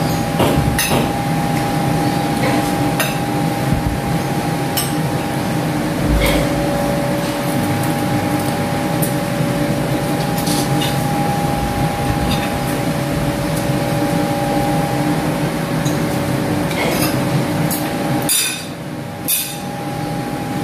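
Spoons and forks clicking and scraping on ceramic plates as two people eat, over a steady mechanical hum that drops in level about eighteen seconds in.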